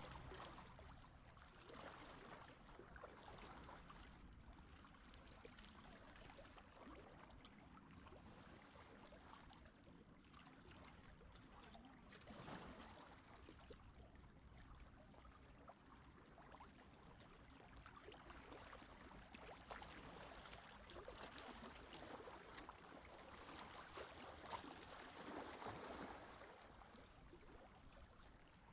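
Faint, gentle sea waves lapping and washing at the shore, swelling softly now and then, most clearly near the end.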